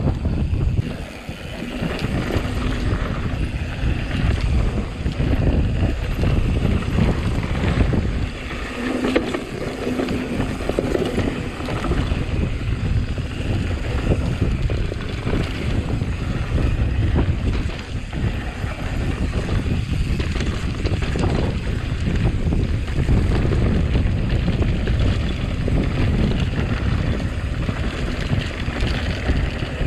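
Wind buffeting the microphone while a mountain bike is ridden over rough ground, its tyres rumbling and the bike rattling with frequent small knocks.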